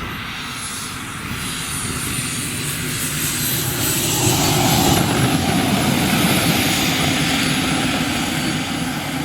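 Radio-controlled model aircraft flying past on a landing approach: its engine noise grows louder to a peak about five seconds in, then fades, with a faint high whine that slowly falls in pitch.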